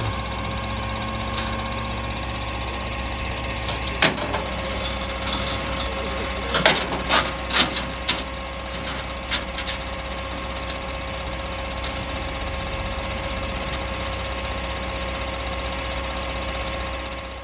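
Crane truck's engine running steadily with a constant whine and low hum. Sharp metallic clicks and clanks from handling the signal pole's metal housing come about 4 seconds in and again in a cluster around 7 seconds.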